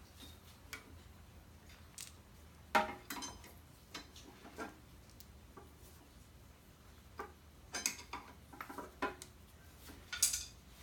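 Irregular metallic clinks and taps of a brake pad and hand tools being worked at a motorcycle brake caliper, about a dozen separate knocks, the loudest about three seconds in and another sharp one near the end.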